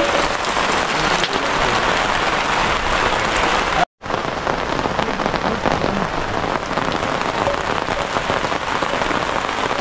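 Steady rain falling on a plastic tarpaulin shelter and muddy ground. The sound cuts out for a split second about four seconds in, then carries on unchanged.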